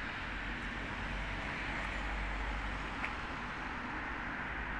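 Steady outdoor street ambience: a low rumble with an even hiss, typical of distant road traffic, and one faint click about three seconds in.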